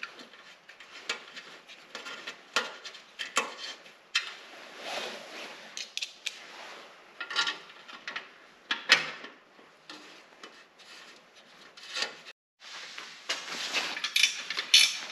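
Small metallic clicks, taps and scrapes of a folding bicycle multi-tool's 4 mm hex key turning the fender-strut bolts at a bicycle's front fork. After a brief gap near the end comes a faster run of sharper clicks as the tool works the fender's top mounting nut.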